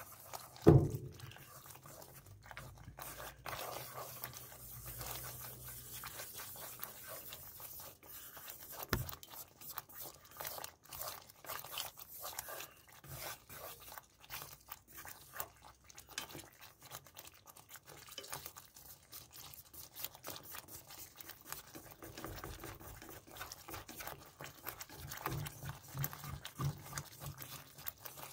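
Meatballs in a thick red sauce bubbling and spattering in a frying pan: a dense, steady crackle of small pops. A sharp knock about a second in, and a lighter one near nine seconds.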